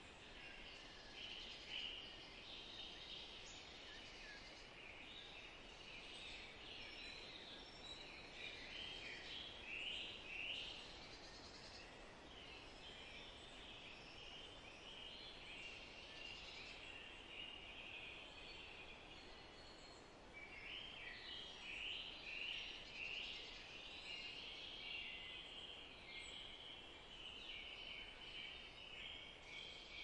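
Faint chorus of many small birds chirping and singing in a meadow over a soft, even background hiss. The calls thin out in the middle and grow busier again about two-thirds of the way through.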